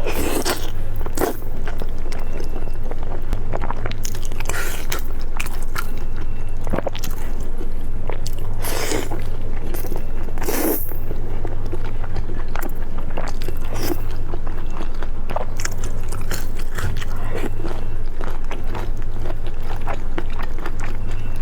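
Close-miked eating: irregular bites, crunches and wet chewing, with a few short louder smacks or slurps, over a steady low hum.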